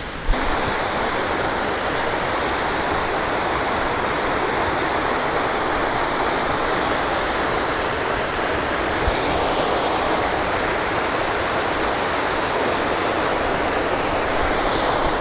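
Small waterfall cascading into a creek pool: a steady rush of falling water.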